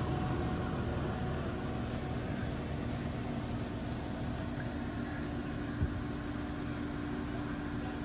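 Steady hum of engine-room machinery and air conditioning aboard a motor yacht, with a steady low tone joining about three seconds in and a single short knock about six seconds in.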